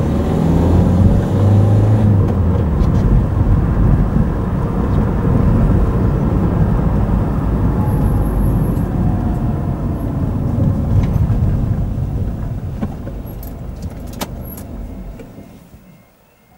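A car runs along a country lane with steady engine and tyre noise, which fades as it slows and stops at a level crossing, with a few clicks as it halts. Just before the end a faint repeating two-note warning tone starts, as from the crossing's alarm with its barriers down.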